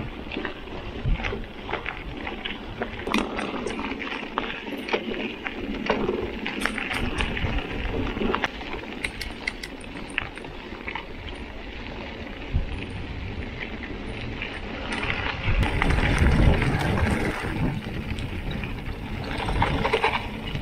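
Mountain bike riding over gravel and dirt: tyres crunching and the bike rattling with many small clicks, over a low rushing noise that grows louder about three-quarters of the way through.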